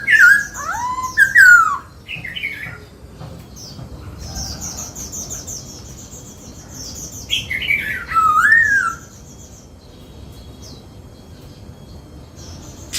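Black-throated laughingthrush singing: two loud phrases of looping, gliding whistles, one at the start and another about seven seconds in, with fainter high, rapid notes between them.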